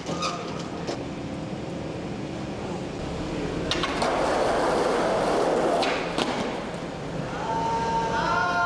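Skateboard wheels rolling over street asphalt for about two seconds, a sharp clack at the start and another at the end.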